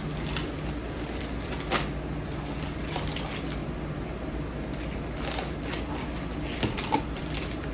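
Snack packets and wrappers crinkling and rustling as a hand rummages in a cardboard box, with a few sharper crackles, over a steady low hum.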